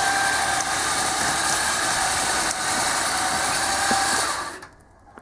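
Winch motor running steadily under load with a faint whine, hauling the boat the last foot onto the trailer; it cuts off suddenly near the end.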